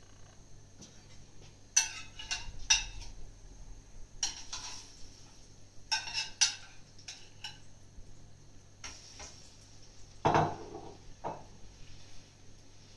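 A metal spoon clinks and scrapes against a glass bowl of grated-potato batter in several short bursts of clatter, then a duller knock about ten seconds in as the batter is spooned over the frying pan.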